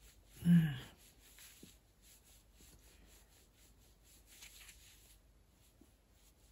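A short vocal sound from a woman about half a second in, then faint soft scratching and rubbing as a polish brush is stroked over a plastic nail tip with gel polish.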